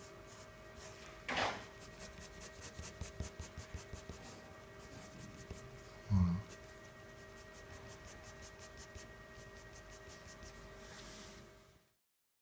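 Pencil scratching on paper in quick repeated strokes as a drawing is sketched, over a faint steady hum. A brief louder rustle comes about a second and a half in and a short low thud about six seconds in; the sound fades out near the end.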